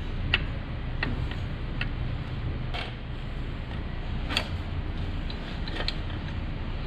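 Sharp metallic clicks and clinks of hand tools on engine parts, one every second or so, during an engine teardown, over a steady low hum.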